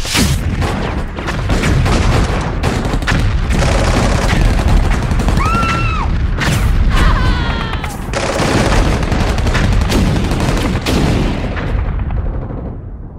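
A film sound effect of a long, loud booming and crashing din, like an explosion, that starts abruptly and is full of sharp cracks over a heavy rumble; a short squeal rises and falls about five and a half seconds in, with falling whistling tones just after, and the din fades near the end.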